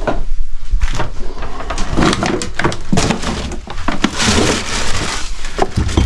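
Old wooden bed boards being handled and shifted among clutter: a busy run of wooden knocks, scrapes and clatters.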